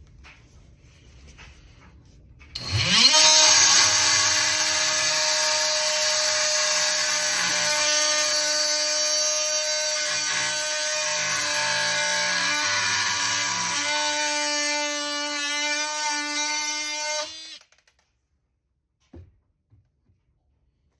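Ridgid oscillating multi-tool starting up with a quick rising whine, then running steadily at a high pitch with a hissy edge for about fifteen seconds. The pitch wavers a little midway, and the tool shuts off abruptly.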